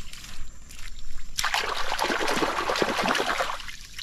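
Splashing and sloshing in shallow muddy water, starting about a second and a half in and lasting about two seconds before dying away.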